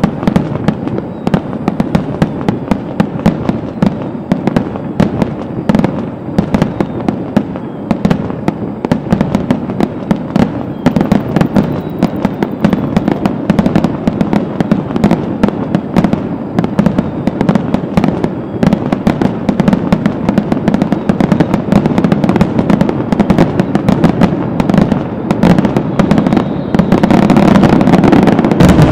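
Aerial fireworks going off in a dense, rapid stream of bangs and crackles over a continuous low rumble, building louder and thicker near the end.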